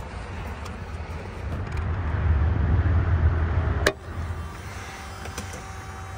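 A door or lid on a 1980 Mercedes 300SD shutting with a single sharp slam about four seconds in, after a low rumble of movement builds up.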